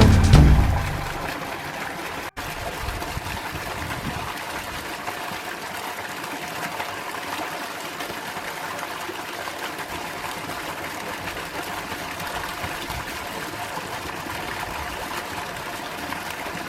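Music fades out within the first second, then a steady rushing noise with faint tones in it continues.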